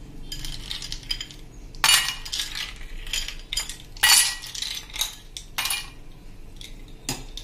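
Ice cubes dropped into drinking glasses: a series of sharp glassy clinks, each with a brief ring.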